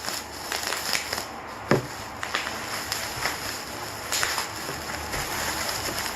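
Bubble wrap and plastic packaging crinkling and rustling as it is handled and pulled off the albums, with many small crackles and a knock about two seconds in.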